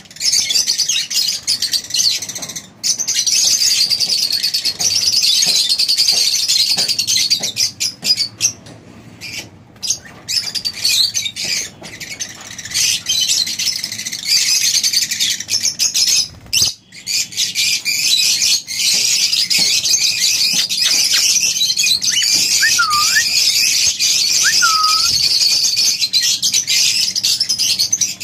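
A flock of Fischer's lovebirds chattering in a dense, high-pitched, continuous twitter, thinning briefly about ten seconds in.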